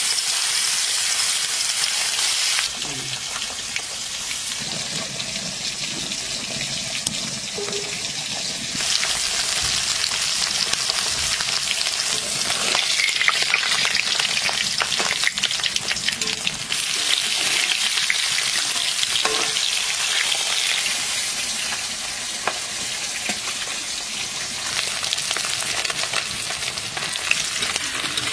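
Climbing perch sizzling as they deep-fry in hot oil in a steel wok, a loud, dense crackling hiss, with occasional scrapes and clicks of a metal spatula and wire skimmer turning the fish.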